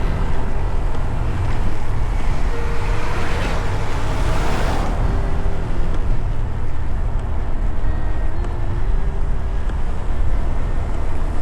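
Motorcycle riding at speed: a steady engine hum under heavy wind rush on the microphone. There is a louder rush of noise about four seconds in.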